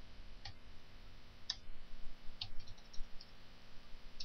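Computer keyboard keys being pressed: single clicks about half a second and a second and a half in, a quick run of four or five a little after two seconds, then one more at the end.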